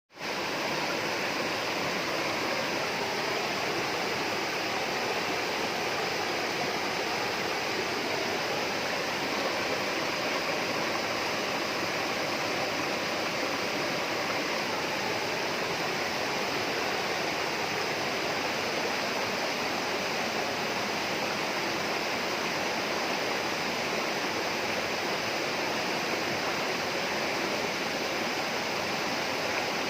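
Steady rushing of flowing water in a rainforest, a continuous even wash with no breaks.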